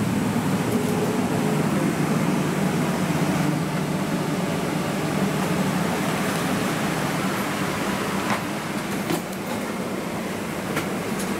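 Steady rushing hum of a Boeing 777-200ER's cabin air conditioning, with a few faint clicks in the later seconds.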